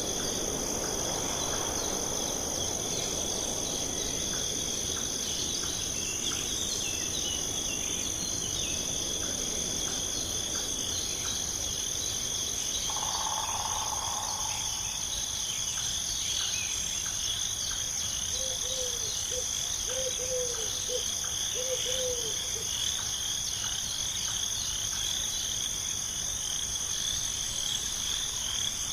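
Crickets trilling in a steady, high chorus. A little past the middle comes a brief tone, then a run of short, low calls from another animal.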